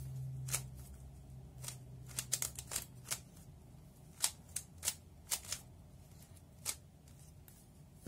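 3x3 Rubik's cube being turned through an algorithm, its plastic layers clicking and clacking in irregular quick runs of sharp clicks. The loudest click comes about four seconds in.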